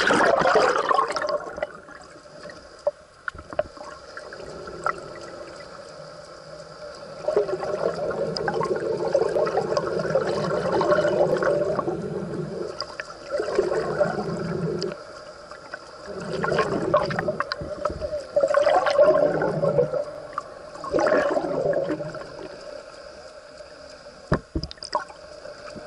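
Muffled underwater sound picked up by a submerged camera: water gurgling in several long surges, over a faint steady hum.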